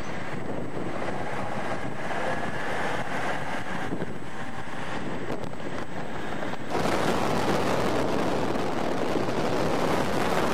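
Steady rumble and rush of a moving vehicle with wind on the microphone. It gets louder and fuller about two-thirds of the way through.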